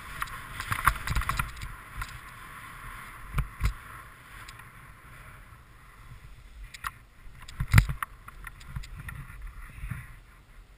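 Snowboard sliding and carving over snow, a hiss and scrape that is strongest in the first two seconds and softer after. It is broken by sharp knocks from bumps: two about three and a half seconds in, and the loudest near eight seconds.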